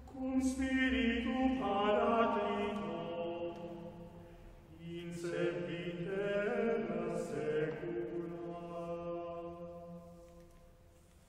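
Small a cappella vocal ensemble of two sopranos, alto, tenor and baritone singing sustained chords of a Latin carol in two phrases. Each phrase swells and then fades, and the second dies away into the church's reverberation near the end.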